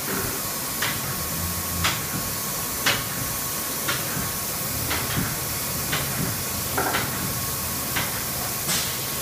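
CNC vertical machining centre milling aluminium: a steady hiss with a thin steady high tone, and a sharp tick about once a second.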